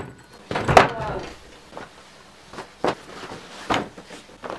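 Handling sounds on a wooden desk: a short scuffing knock about a second in, then several sharp knocks spaced apart, as objects are picked up and set down.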